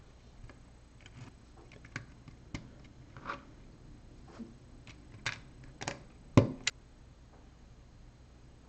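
LEGO pieces clicking as they are handled and pressed onto a build, a dozen or so scattered clicks with the sharpest pair about six and a half seconds in. Under them runs a faint steady hum from a refrigerator in its defrost cycle.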